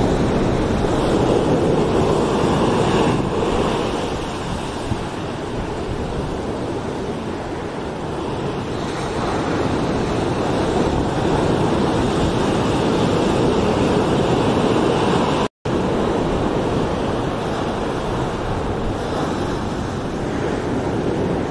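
Ocean surf breaking and washing up the beach, a steady rushing that swells and eases slowly. The sound drops out completely for an instant about two-thirds of the way through.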